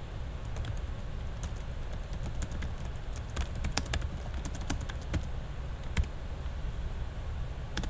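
Typing on a computer keyboard: a quick run of uneven key clicks, busiest in the middle, over a low steady hum.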